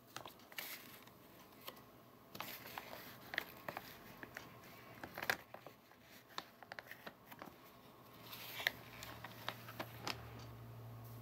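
A cat nosing and pawing at an empty plastic bag of dried bonito flakes: the bag crinkles and rustles in scattered bursts of sharp clicks.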